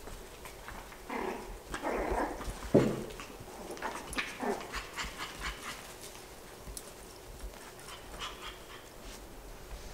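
Yorkshire terrier puppies playing: short puppy noises and scuffling in the first few seconds, and a sharp knock just before three seconds in that is the loudest sound. Light scattered clicks and taps follow.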